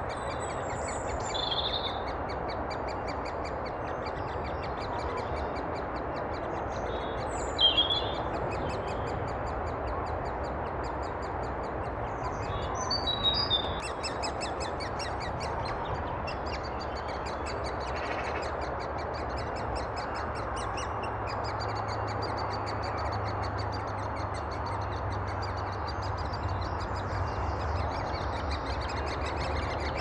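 Great spotted woodpecker chicks calling from inside the nest hole, a fine, rapid high chatter, with a few louder bird calls over it, the loudest about seven or eight seconds in. A steady background hiss lies underneath.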